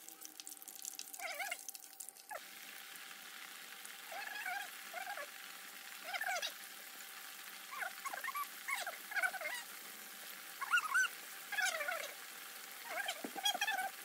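Oil sizzling steadily as fish fries in a skillet, with a dozen or more short animal cries, each rising and then falling in pitch, coming every second or so over it.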